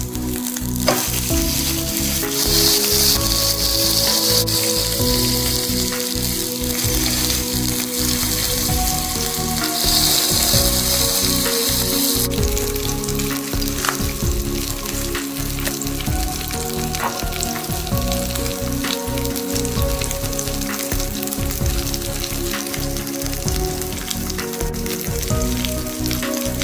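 Slab of pork belly sizzling in a frying pan, its fat crackling and spitting. The sizzle swells louder twice, a few seconds in and again around ten seconds in, the second ending abruptly.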